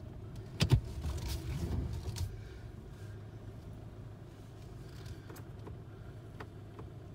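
Car engine running at low speed, a steady low hum heard from inside the cabin. A sharp knock comes a little under a second in, followed by a second or so of rumbling handling noise.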